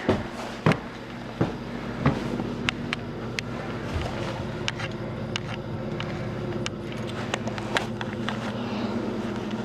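Footsteps crunching through deep snow, a step about every 0.7 seconds for the first two seconds. Then a steady low mechanical hum, like a running engine, takes over and holds.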